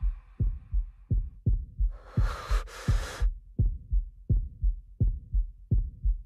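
Heartbeat sound effect: steady low thumps, about three a second, in lub-dub pairs. About two seconds in, a rush of noise lasts just over a second.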